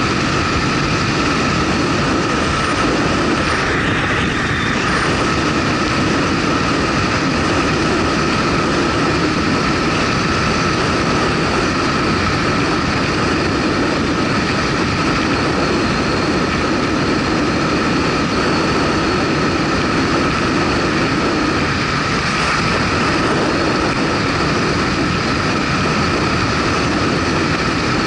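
Motorcycle under way at steady speed: engine drone mixed with wind and road noise, running without a break, with a steady high whine over it.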